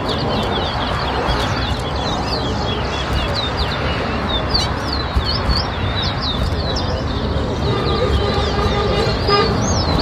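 Towa-towa (chestnut-bellied seed finch) singing: a run of quick, high whistled chirps and short sliding notes repeated throughout, over steady traffic noise. A steady horn-like tone joins in near the end.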